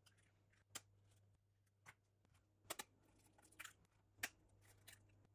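Eggs being cracked into a glass bowl: a handful of faint, sharp clicks of eggshell tapping and breaking, spaced out a second or so apart, over a faint low hum.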